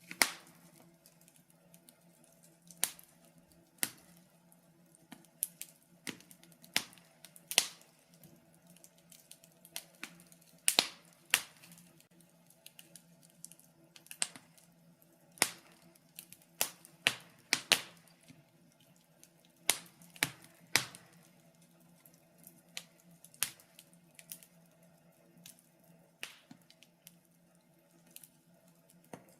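Wood fire crackling in a fireplace: irregular sharp pops and snaps, sometimes several in quick succession, over a faint steady hum.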